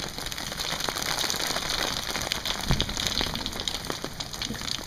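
Steady rain falling, with many small sharp ticks of drops striking a surface. A single brief low thump sounds a little past halfway.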